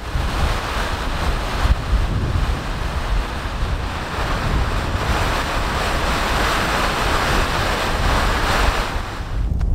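Geothermal vent at a hot spring giving a steady rushing hiss, with wind buffeting the microphone underneath. It starts and cuts off abruptly.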